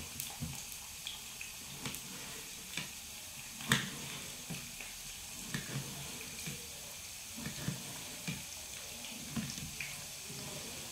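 Potato slices frying in hot oil in a pan, a steady sizzle. Over it, scattered short knocks of a knife slicing potato on a ceramic plate, the sharpest about four seconds in.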